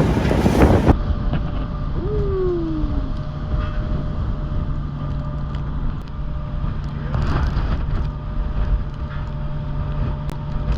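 A boat's engine running steadily with a low hum. A brief falling whistle-like tone comes about two seconds in. Wind buffets the microphone for the first second.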